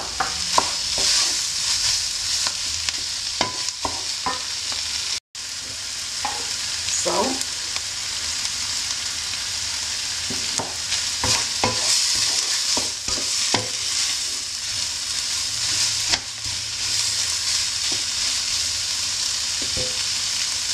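Minced meat, rice and chopped vegetables sizzling in a nonstick frying pan, stirred with a wooden spoon that scrapes and taps against the pan again and again. The sound cuts out for an instant about five seconds in.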